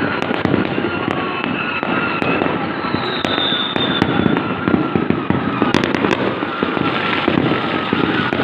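Dense, continuous fireworks and firecrackers going off, a steady rapid crackling and popping with no pause, with a high whistle running for about a second around the middle.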